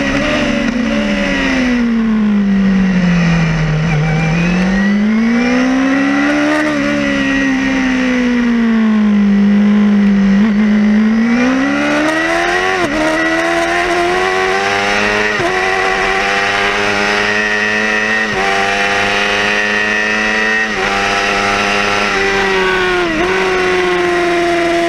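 Yamaha R6 600 cc inline-four racing engine heard from onboard. Its note falls and rises as the bike slows for and pulls out of corners over the first half, then climbs in repeated steps with a sudden dip at each upshift, about every two and a half seconds.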